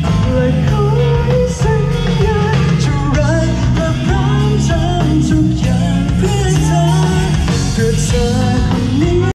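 Live pop-rock band playing through a PA: guitars, drums and bass with sung vocals. The music cuts off suddenly at the end.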